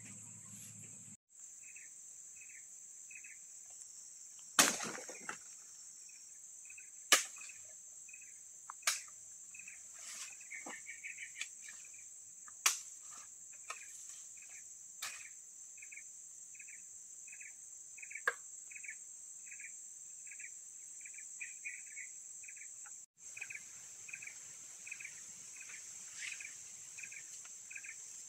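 A series of sharp chops of a blade into bamboo stems, the first and loudest about four and a half seconds in, the rest spaced a few seconds apart and ending about two-thirds through. Behind them, a steady high insect drone and a regular chirp about twice a second.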